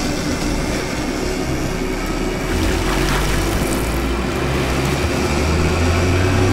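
Sportfishing boat's engines running steadily under way, with wind and rushing water from the wake; the engine drone grows louder near the end.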